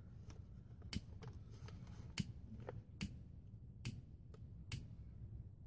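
A hand-held lighter being clicked over and over, a sharp click about once a second, while it struggles to light the newspaper under a charcoal chimney starter; the owner takes it for a worn-out lighter.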